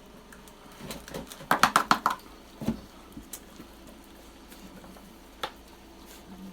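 Dog food bowl and dry food being handled while feeding dogs: a quick run of sharp clicks and clatter about a second in, then a couple of single knocks.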